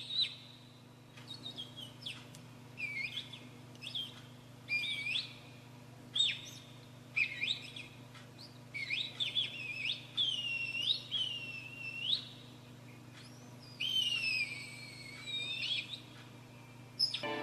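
A series of bird-like whistled calls, each a quick swooping note that rises or falls in pitch, coming every second or so, over a faint steady low hum.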